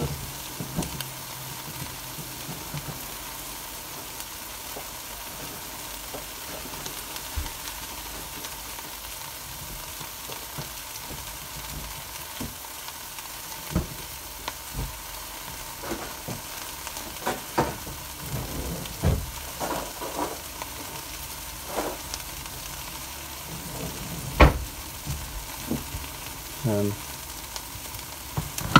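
Chicken frying in a pan with a steady sizzle. In the second half come scattered light knocks and clatter, the loudest a sharp knock about three-quarters of the way through.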